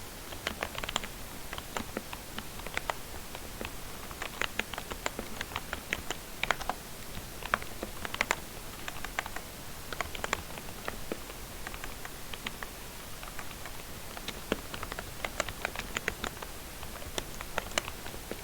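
Typing on a lubed membrane keyboard: quick, uneven bursts of soft key presses with short gaps between them.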